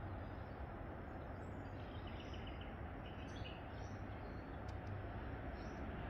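Steady outdoor background noise with a low hum, with a few faint, short, high chirps of small birds scattered through it.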